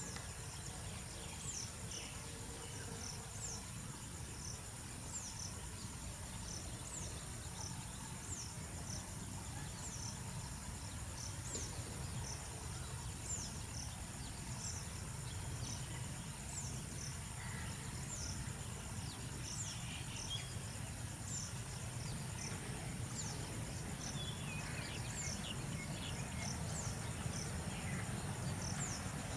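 Steady high-pitched insect drone with a short falling chirp repeating about once a second, over the low rumble of an approaching MLW-built ALCo diesel locomotive that grows louder toward the end.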